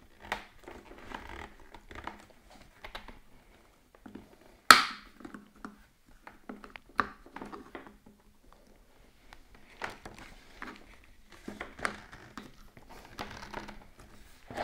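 Handling noise from an iMac G4's chrome neck arm and white plastic dome base being moved by hand: scattered clicks, rubs and light knocks, the arm having come open at its joint. One sharper knock about five seconds in is the loudest.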